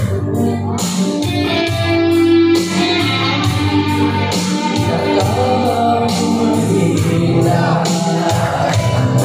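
Karaoke backing music with guitar and a steady beat, and a man singing along into a microphone.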